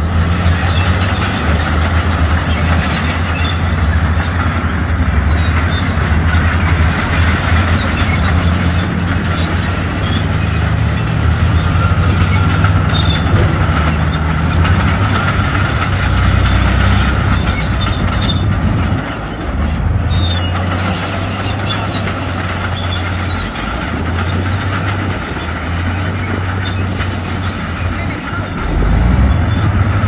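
Crawler bulldozer working: its diesel engine running steadily under a continuous metallic track noise. The engine sound drops for a moment about two-thirds of the way through, then picks up again near the end.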